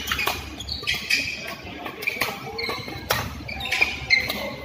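Doubles badminton rally: rackets striking the shuttlecock with sharp hits every second or so, and sports shoes squeaking on the court mat between them.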